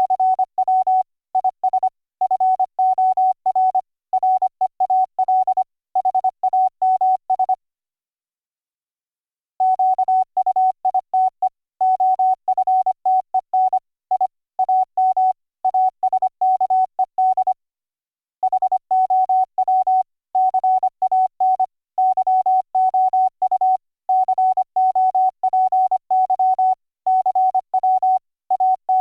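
Computer-generated Morse code tone from YPLog's software CW keyboard: a single steady pitch keyed rapidly on and off in dots and dashes, with two brief pauses in the sending, about eight and seventeen seconds in.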